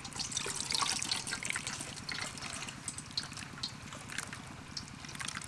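Coconut milk trickling through a plastic strainer into a steel bowl as handfuls of wet grated coconut are squeezed and kneaded by hand, with small wet crackles and clicks. The trickle is a little louder in the first couple of seconds.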